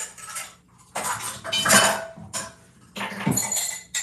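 Dishes and metal utensils clattering and clinking in several short bursts, some with a brief ring, as kitchenware is handled at the counter.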